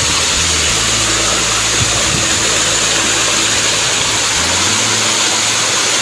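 Steady roar of the Sumuran waterfall close by, with wind rumbling on the microphone for a few seconds in the middle.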